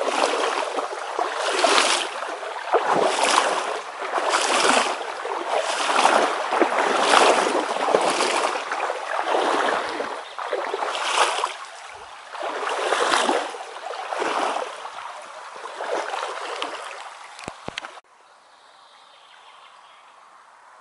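Waders pushing through shallow river water: a splashing swish with each stride, coming about every second and a half. The sound cuts off suddenly near the end, leaving only faint background sound.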